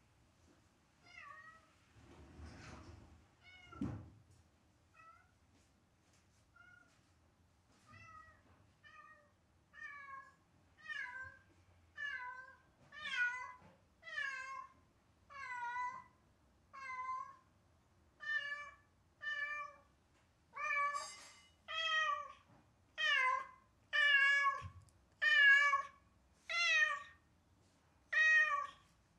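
A house cat meowing over and over, about once a second, the calls starting faint and growing louder and more insistent. This is the plaintive crying it does when left alone, which its owners fear is a sign of separation anxiety. A soft thud sounds about four seconds in.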